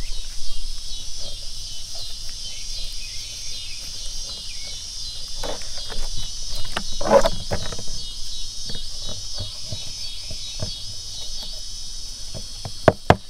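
Steady high insect chorus, with scattered knocks and scrapes from a knife working on a blue catfish's skin as it is cut around the head for skinning. The loudest scrape comes about seven seconds in, and two sharp clicks come near the end.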